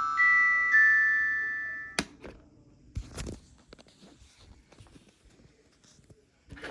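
The Samsung SPH-N400 phone's ringtone ends with beeping tones climbing to a held high note. The note is cut off with a click about two seconds in. A few scattered clicks of the phone's keys and handling follow.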